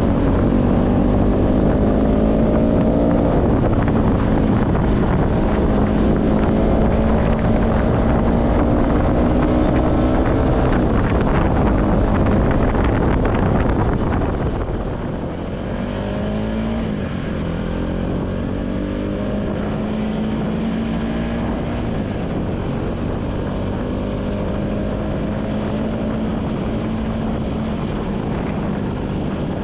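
Bajaj RS200's single-cylinder engine running through an aftermarket Akrapovic slip-on exhaust while riding. The note climbs slowly and drops sharply at gear changes, about three seconds in and again about eleven seconds in, then runs a little quieter with a couple more climbs and drops, with wind on the microphone.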